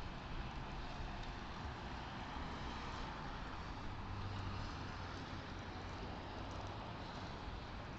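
Steady road and engine noise heard from inside a stopped car through a dashcam's microphone, with a low hum underneath.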